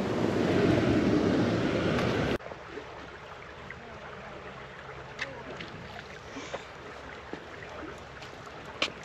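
Loud steady rushing noise that cuts off abruptly about two and a half seconds in. It gives way to quiet outdoor ambience with a few faint clicks and one sharper click near the end.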